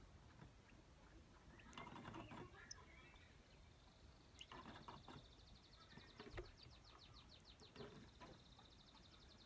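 A small caged finch singing a fast, even trill of high repeated notes that starts about three and a half seconds in. Before it, around two seconds in, there is a soft knock or rustle.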